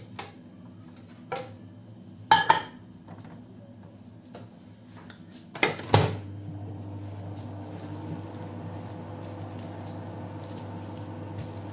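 Knocks and clatters of a dish being put into a microwave oven, the loudest a little over two seconds in and again about six seconds in; then the microwave starts running with a steady low hum, melting butter.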